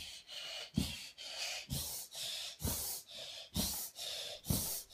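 A child rocking back and forth against a sofa's padded back: a soft thump about once a second, five in all, each time his body hits the cushions, with loud breathing and gasps between the thumps.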